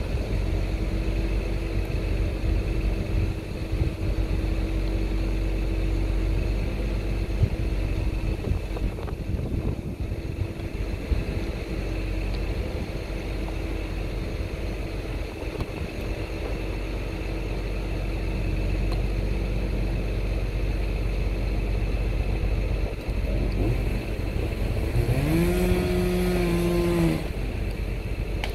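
A large engine running steadily at a constant pitch. Near the end a higher pitched sound rises, holds for about two seconds and cuts off.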